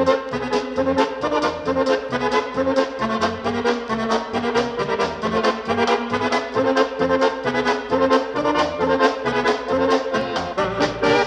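Polka music: accordion and brass playing over a steady, quick oom-pah beat.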